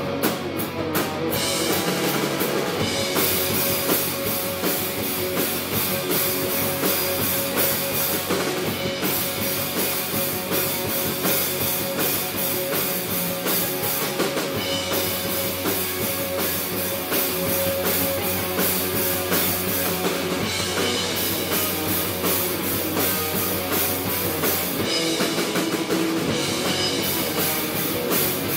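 Live instrumental rock band playing: two electric guitars, electric bass guitar and a drum kit with steady cymbals.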